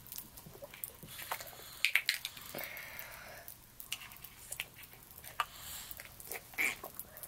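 Children slurping, sucking and chewing jello close to the microphone: irregular wet smacks, slurps and clicks, loudest about two seconds in.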